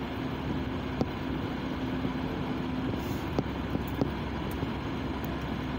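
Steady low hum inside a car's cabin, with a faint steady tone through the first half and a few faint clicks.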